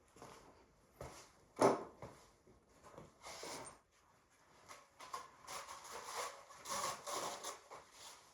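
Hand work on an engine under teardown: irregular knocks and scraping of tools and parts, with one sharp clunk about a second and a half in and a stretch of steady rubbing and scraping in the second half.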